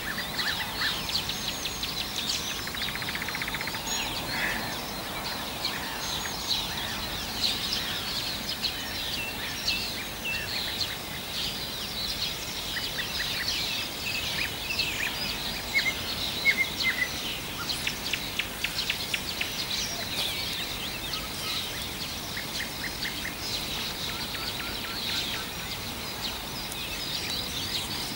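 Several songbirds singing at once, a continuous run of chirps, trills and short whistles from the riverside trees.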